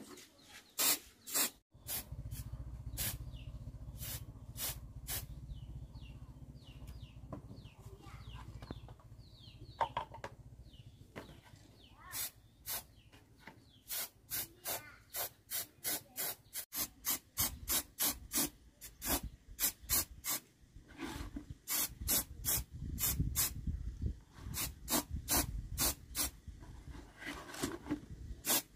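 Aerosol spray-paint can hissing in many short bursts, a second or less apart and coming more densely in the second half, as red paint is sprayed onto a chainsaw's plastic cover. A low rumble runs underneath for much of the time.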